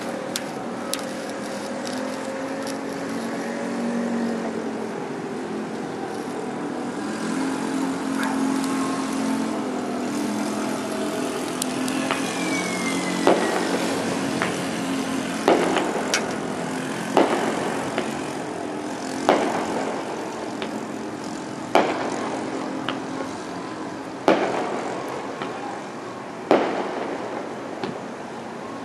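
Aerial fireworks going off: a falling whistle about halfway through, then seven sharp bangs about every two seconds, over a steady hum of city background noise.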